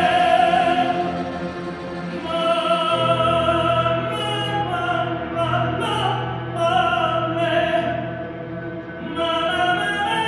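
A male singer with an orchestra of strings and piano, singing long held notes with vibrato over the accompaniment.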